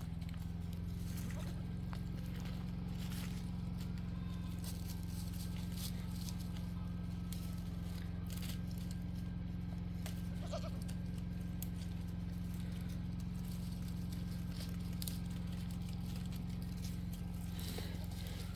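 Faint goat bleats over a steady low hum, with scattered light clicks and rustles.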